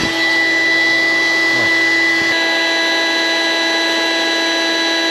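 A small electric motor appliance running steadily, with a high whine over a rushing hiss; its tone shifts slightly a little over two seconds in.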